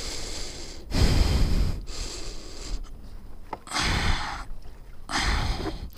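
Heavy, straining breaths close to a helmet mic, in three surges, from a rider exerting himself to drag a heavy stuck dirt bike.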